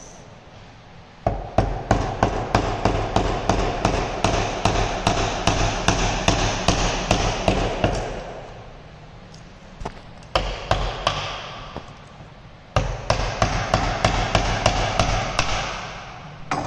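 A mallet striking a firmer chisel into a wooden block clamped in a bench vice, chopping out the waste of a T-joint notch. The knocks come quickly, about three a second, in a long run, then a few near the middle, then another run near the end.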